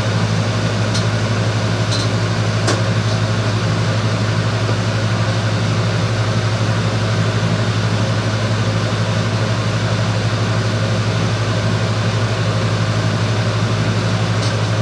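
A steady, loud machine hum with a strong low drone, with a few faint clicks in the first three seconds.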